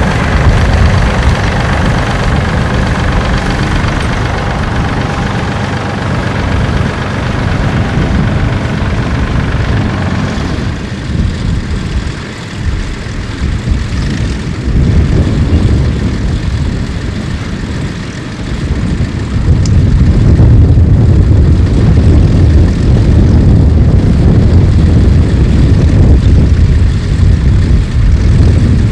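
Tractor engine running steadily, a dense low rumble that grows heavier and louder about twenty seconds in.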